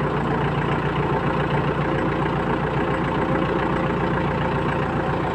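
Iseki NT548F tractor's diesel engine idling steadily.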